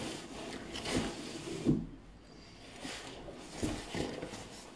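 Black fabric carrying bag for an LED ring light being handled and turned over: irregular fabric rustling with a few sharper scuffs.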